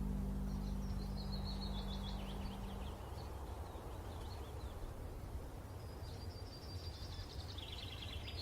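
Songbirds chirping in high trills, about a second in and again near the end, over a low steady drone that fades out about three seconds in.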